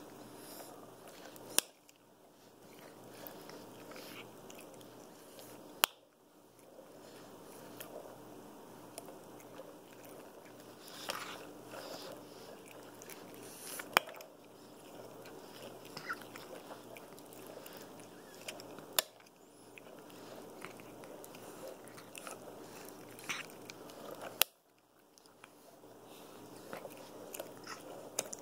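Capuchin monkey biting and chewing on a fringed toy close to the microphone, a steady wet chewing and crunching, broken by about five sharp clicks.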